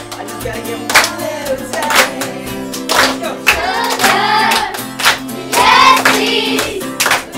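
A group of children singing together to an acoustic guitar, clapping their hands in time about once a second.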